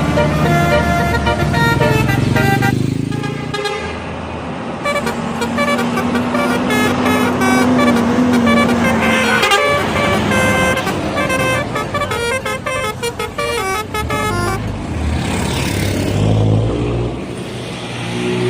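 Bus telolet horn, a multi-trumpet air horn, playing quick runs of short melodic notes again and again.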